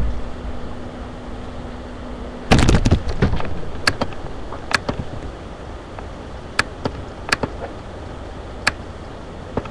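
A low steady hum that stops about two and a half seconds in with a loud burst of knocks, followed by about six sharp, irregularly spaced clicks.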